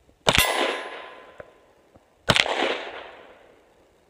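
Glock 19 Gen 3 9mm pistol fired twice, about two seconds apart, each shot followed by a long echoing decay.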